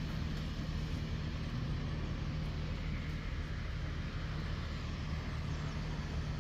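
Steady rumble of road traffic at an intersection, with a low engine hum underneath and no distinct events.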